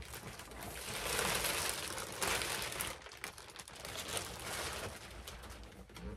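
Plastic packaging crinkling and rustling as a large cardboard box is handled and turned. The crinkling is loudest in the first half, then thins out to scattered crackles.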